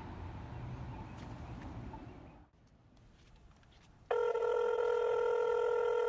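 Low background noise, then a short hush; about four seconds in, a phone ringtone starts, a steady electronic tone of a few held pitches, much louder than what came before.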